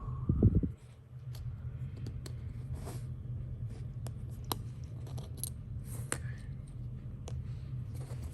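Small sharp metallic clicks and scrapes from handling a titanium fidget slider while its plates are taken apart and changed, with a loud low bump just under a second in. A steady low hum runs underneath.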